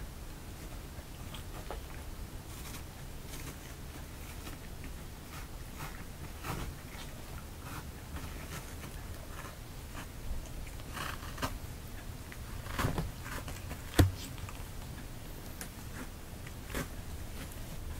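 Cats' paws and claws scratching and batting at a fabric cat tunnel: scattered short rustles and scrapes over a low steady hum, with one sharp click about fourteen seconds in.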